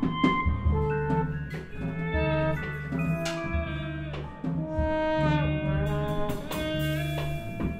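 Small jazz band playing live: a trombone melody of held notes over electric guitar, upright bass and drums with cymbal hits.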